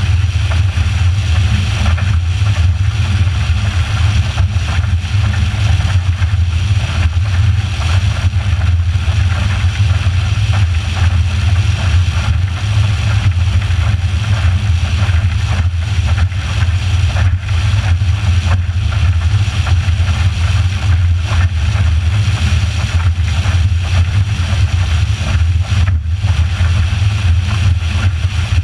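Motorboat running steadily underway: a constant low engine drone with a hiss of wind and rushing water over it.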